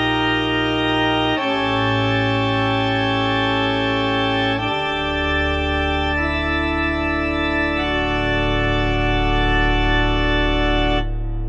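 Background music of sustained organ-like chords, changing every second or few; near the end the high notes drop away.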